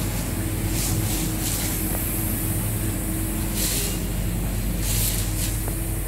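Steady outdoor traffic hum with a low engine drone, broken by several short bursts of hiss.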